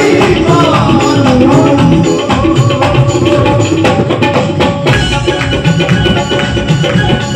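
Live Punjabi devotional music amplified through loudspeakers: a singer's voice over a keyboard, with hand drums and hand claps keeping a quick, steady beat.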